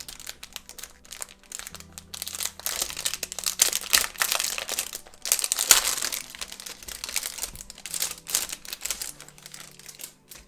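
Crinkly packaging rustling and crackling in the hands as a boxed enamel pin is unwrapped, with dense irregular crackles that thin out near the end.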